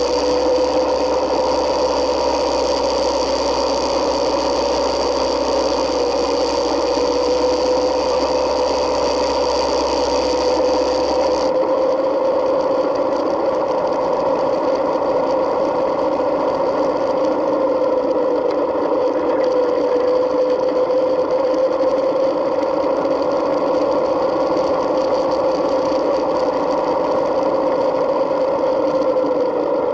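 Yamaha Midnight Star 1900's V-twin engine running steadily at cruising speed with wind noise, heard through a bike-mounted camera: a steady drone whose pitch drifts slightly up and down. About eleven seconds in, the high hiss and the deep rumble drop out suddenly, leaving a narrower sound.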